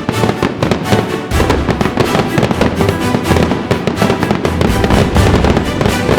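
Fireworks going off in rapid, dense crackling and popping, with music playing along.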